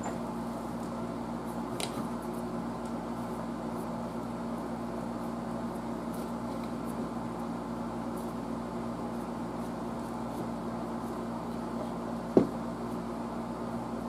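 Steady low machine hum in a small room, with a cloth rubbing faintly over a radio front panel and one sharp click near the end.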